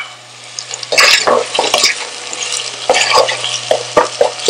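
Diced onion and green chilies sizzling in hot oil in a pot while a wooden spoon stirs them in irregular strokes. The sizzle gets louder about a second in.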